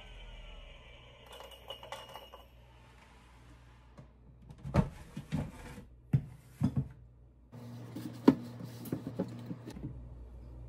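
Hard plastic knocks and clatters as the lid and flour bowl of a NutriMill Classic electric grain mill are taken off after grinding, with the sharpest knocks about halfway through and again near the end.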